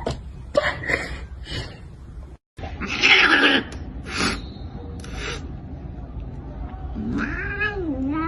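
A cat hissing sharply about three seconds in, then a drawn-out, wavering meow near the end.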